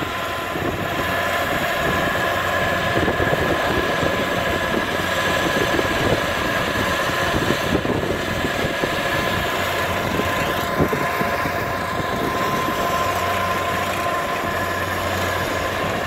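Kubota DC60 combine harvester running steadily as it cuts and threshes flattened, lodged rice. Its diesel engine is heard under a steady high whine.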